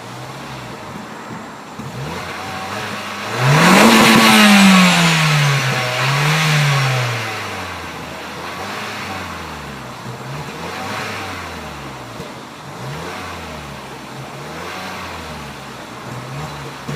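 Vauxhall Corsa VXR's turbocharged 1.6-litre four-cylinder engine revved through its exhaust. A sharp, loud rev comes about three and a half seconds in, then a shorter blip, then a run of lighter blips roughly every two seconds, with the engine dropping back between them.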